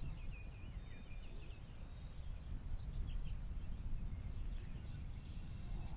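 Wind rumbling on the microphone in an open field, with faint small-bird chirps in the distance, clustered in the first second or so and again near the middle.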